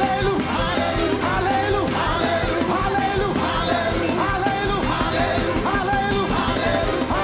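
Loud live praise music from a full band with a steady beat, with many voices singing and shouting along.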